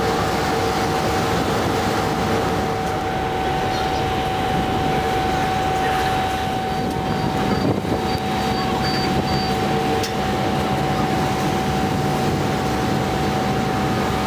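Toremar car ferry's engines and ventilation running with a steady drone and a constant hum as the ship manoeuvres into harbour, a deeper engine note joining about six seconds in.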